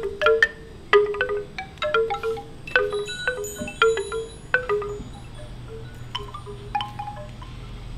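Wind chimes ringing: irregular, overlapping struck tones, dense at first and thinning out after about five seconds, when a faint low hum comes in underneath.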